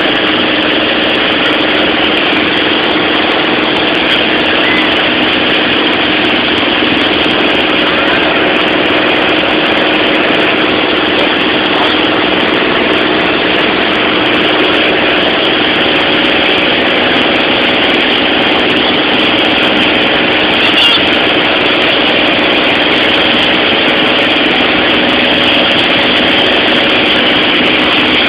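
Steady, loud drone of a light airplane's engine and propeller heard from inside the cabin in flight, with a constant hum under it.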